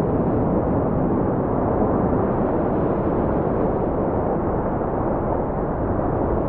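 Rough sea: a steady, loud rush of surf and wind, deep and rumbling, with no separate crashes standing out.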